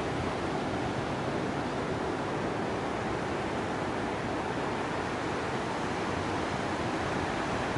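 Ocean surf: a steady, unbroken wash of breaking waves.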